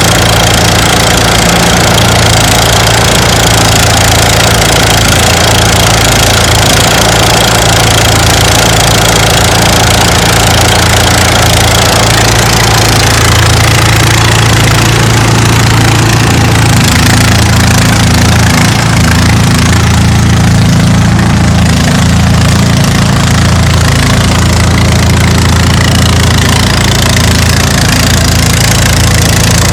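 Engine-driven rice thresher running steadily and loudly, a low engine hum under a broad mechanical rattle. About halfway through the higher rattle thins out and the low hum comes forward.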